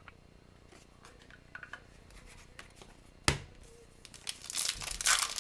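Quiet handling of trading cards, a single sharp click about three seconds in, then a foil card pack's wrapper being crinkled and torn open near the end.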